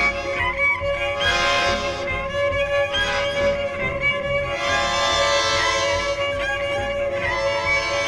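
Instrumental music: a bowed cello playing a melody with vibrato over a steady harmonium drone.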